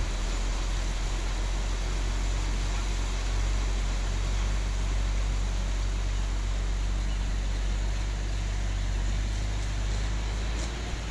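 Dump truck's diesel engine running steadily with a low hum as it creeps forward with the bed raised, spreading a load of stone onto a gravel driveway; the sound eases slightly near the end.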